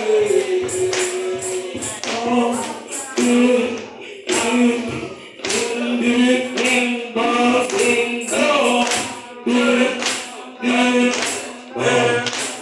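Church congregation singing a spiritual together in chorus over a steady beat of hand percussion.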